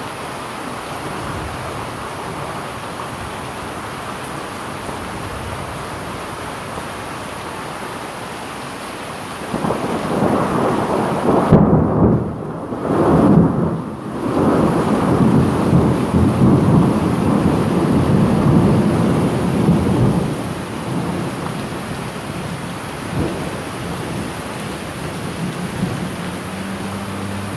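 Steady heavy rain with a long roll of thunder that swells about a third of the way in, peaks, and rumbles on for about ten seconds before fading back to the rain.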